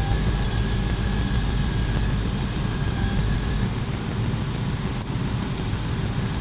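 Steady engine noise of heavy tree-removal machinery running, with a thin high whine that shifts pitch in small steps and a mid-pitched tone that drops out about halfway through.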